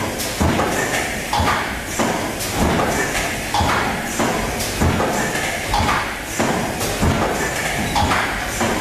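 SP-U10 automatic suppository forming, filling and sealing machine running through its cycle: a clunk with a short burst of air hiss repeats about every second and a bit, eight times in a row, over a steady machine din.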